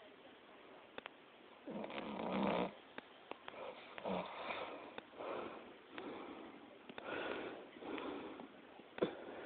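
A sleeping person snoring: one long, loud snore about two seconds in, then a run of shorter, softer snoring breaths about a second apart. Faint clicks come between the breaths, with a sharper click near the end.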